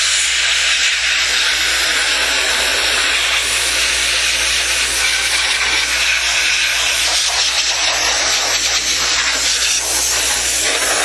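Compressed air hissing steadily from an air-compressor blow gun, blasting dust out of a desktop computer's CPU cooler fan and heatsink.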